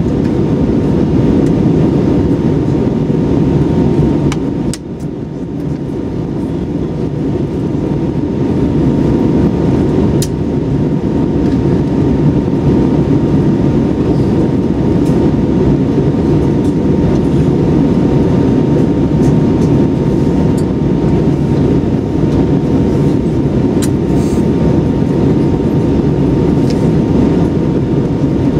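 Airbus A320-200 cabin noise in flight: a steady, loud rumble of engines and airflow with a faint steady hum. It dips briefly about five seconds in, then builds back up.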